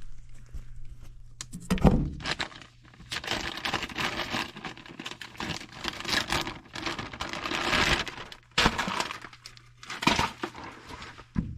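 Packaging being handled and opened to get out a new furnace control board: irregular crinkling, rustling and tearing. A low hum underneath stops about two seconds in.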